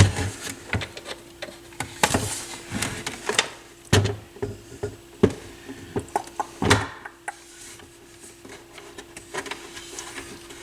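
Hands handling the plastic body of a Dual CS 530 turntable: a string of knocks, clicks and rattles as it is turned and prodded, with a faint steady hum underneath.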